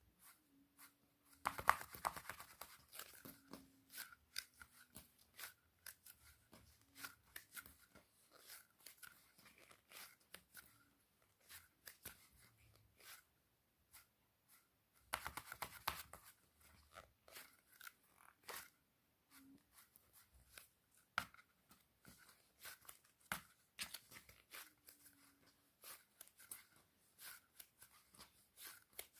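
Faint crinkling and crackling clicks from squishy toys being squeezed and handled. There are two louder bursts of crinkling, about two seconds in and about fifteen seconds in.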